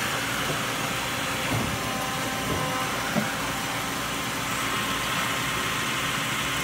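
Hardinge Conquest T-42 CNC turning center running through a machining cycle: a steady mechanical hiss and hum, with a short click about three seconds in.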